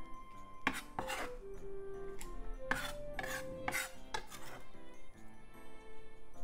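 Chef's knife scraping minced Japanese leek across a wooden cutting board and into a stainless steel bowl: a series of short scrapes and taps, the blade knocking on the bowl's metal. Quiet background music runs under it.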